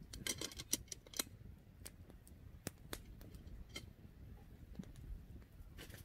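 Soft crinkling and small clicks of plastic bags being handled and filled: a close cluster in the first second, then single ticks spread out.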